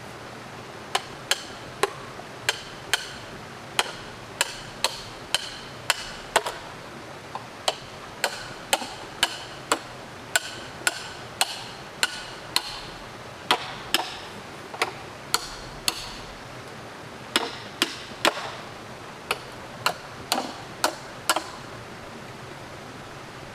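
A hand tool striking bamboo over and over, about two sharp knocks a second, each with a short hollow ring; the blows pause briefly about two-thirds of the way through and stop shortly before the end.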